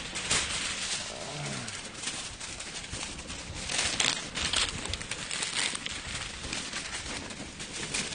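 Aluminium foil rustling and crinkling as a sheet is shaken open and folded by hand, with irregular crackles throughout that are loudest about four seconds in.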